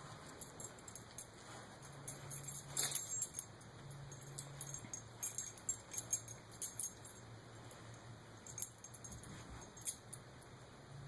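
Dog's collar tags jingling in several short bursts as the dog moves.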